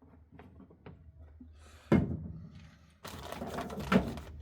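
Hands handling parts and packaging: a few small clicks, a sharp knock about two seconds in, then about a second of noisy rustling and scraping near the end.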